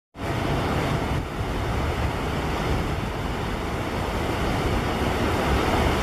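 Steady rushing outdoor noise with a low, fluctuating rumble; no distinct bird calls stand out.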